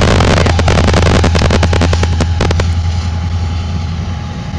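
CSX freight train rolling past under diesel locomotive power: a steady low engine drone with rapid clicking and clanking from the moving train, which thins out after about two and a half seconds as the level eases.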